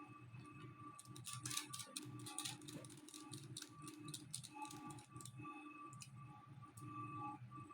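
Quiet background music with a steady repeating pattern. About a second in, a quick run of small clicks and rattles lasts for a couple of seconds.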